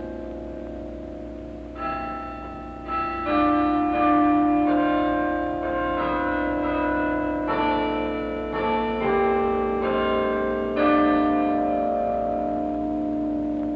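Tower bells chiming a slow melody: a bell struck about once every half second to second, each note left ringing into the next, with the last note ringing on after about eleven seconds in.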